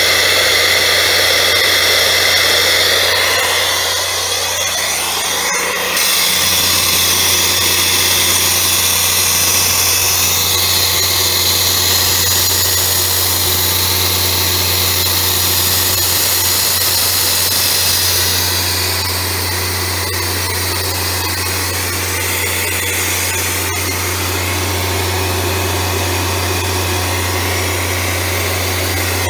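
Atlas Copco XAS37 portable diesel air compressor running steadily: a constant low engine hum under a steady high hiss. It gets louder about six seconds in.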